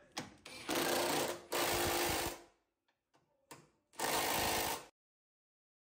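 Milwaukee cordless impact driver, on a long socket extension, hammering a bracket bolt tight in three bursts: two back to back about a second in, and a third near the end.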